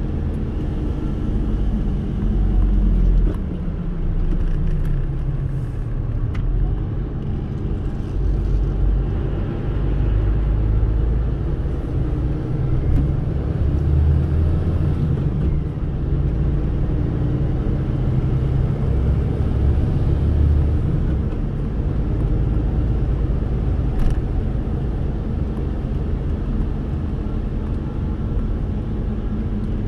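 Car driving, heard from inside the cabin: a steady low engine and road rumble. The engine note drops in pitch over the first few seconds, then holds.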